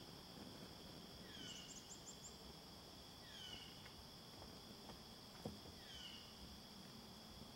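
Faint, steady trilling of insects in the woods, with a bird's short downward-sliding call repeated about every two seconds. A single faint snap comes about five and a half seconds in.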